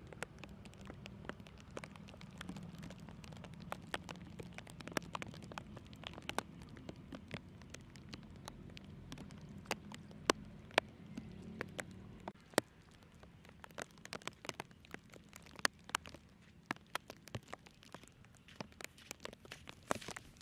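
Light rain pattering: scattered, irregular sharp drop ticks, over a low rumble that fades out about twelve seconds in.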